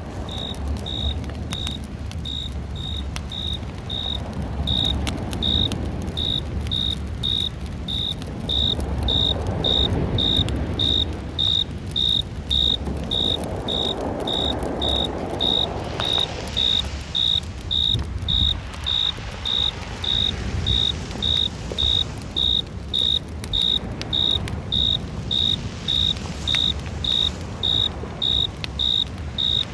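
A cricket chirping steadily, about three short, high chirps every two seconds. Under it is a low rumble of background noise that swells and fades.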